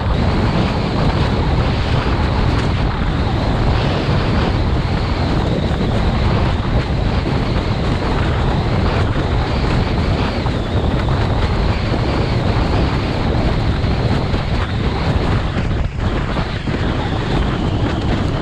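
Wind buffeting the action camera's microphone in a steady low rumble, over the rush and slap of water under a slalom windsurf board sailing at speed.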